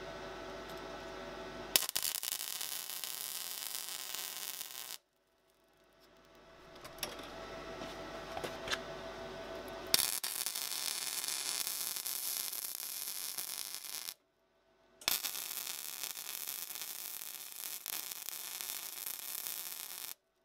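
Electric arc welding: three runs of the arc hissing and crackling, each striking suddenly, about two seconds in, at ten seconds and at fifteen seconds, and each cutting off abruptly after three to five seconds.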